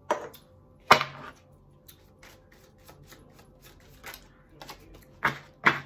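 Tarot cards handled on a table: a few sharp slaps, two near the start and two close together near the end, with light clicks between.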